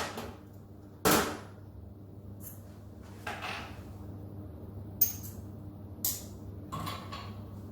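Sharp metallic clicks and knocks of tools on a CNC router spindle while its milling bit is being changed, about five separate strikes with the loudest about a second in, over a steady low hum.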